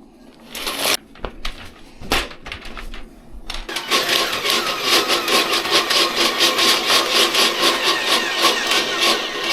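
A few clicks and knocks, then about three and a half seconds in a motor-driven power tool starts and runs steadily with a fast, even pulsing buzz.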